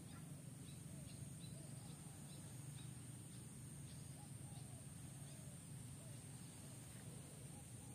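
Faint outdoor ambience: a steady low hum and a steady high whine, with soft animal chirps scattered throughout.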